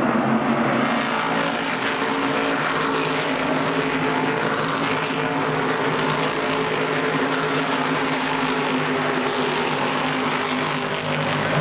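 A field of NASCAR Whelen Modified race cars running at speed around the oval, their V8 engines blending into one steady, dense engine noise, easing slightly near the end.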